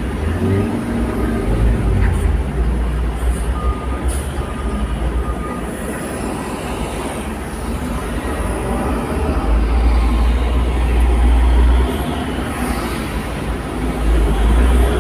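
Low rumble of a car's engine and tyres, heard from inside the cabin as the car creeps forward slowly. The rumble swells louder for a couple of seconds around the middle and again near the end.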